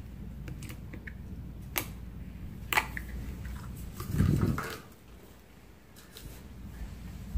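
Slime being handled, with a few sharp clicks and, about four seconds in, a louder muffled low bump lasting about half a second, over a low background hum.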